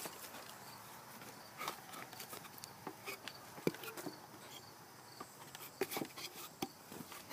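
Footsteps over dry leaf litter and twigs: short, irregular crunches and snaps.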